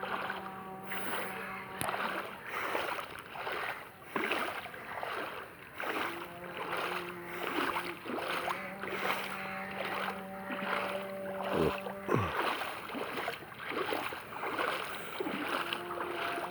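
Legs wading through floodwater, splashing about twice a second. A steady motor hum is heard for a couple of seconds at the start, drops out, then returns about six seconds in and runs for several seconds more.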